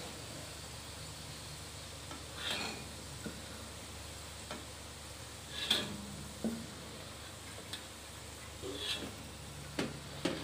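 Diced potatoes sizzling in hot oil in a wok, with a spatula scraping and knocking against the wok several times as the fried potatoes are scooped out.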